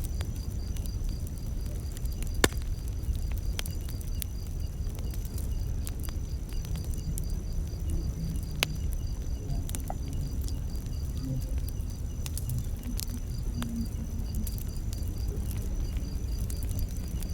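Campfire crackling over a low steady flame rumble, with scattered sharp pops, the loudest about two and a half seconds in and again near nine seconds. Crickets chirp steadily in a high, evenly pulsing trill throughout.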